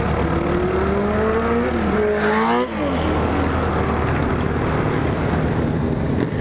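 Motorcycle engine accelerating, its pitch climbing for about two and a half seconds, then dropping sharply at an upshift before pulling again, with wind rumble on the microphone.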